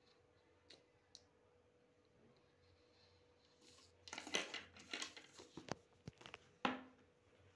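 A sheet of drawing paper handled and slid across a wooden desk: a cluster of rustles and light scrapes starting about halfway in, after a couple of faint clicks.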